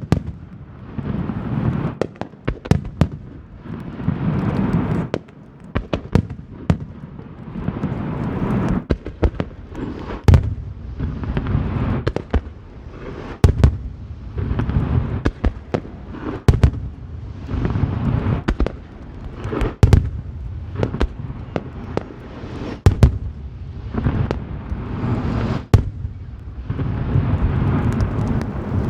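Aerial firework shells bursting in quick succession: many sharp bangs, sometimes several a second, over a continuous low booming that swells and fades.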